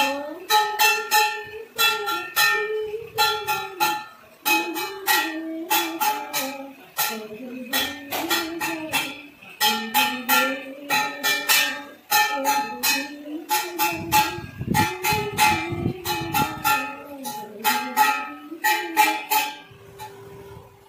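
A puja hand bell is rung steadily, about two or three strikes a second, while a voice chants a prayer in a wavering, sing-song line. Both stop shortly before the end.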